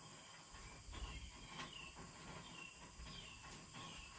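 Quiet outdoor ambience with a run of short, high, falling chirps repeating about twice a second.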